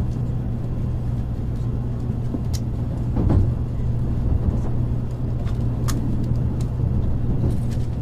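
Inside the cabin of a moving N700A Shinkansen train: a steady low rumble of the running train, with a few short sharp clicks and a brief louder swell about three seconds in.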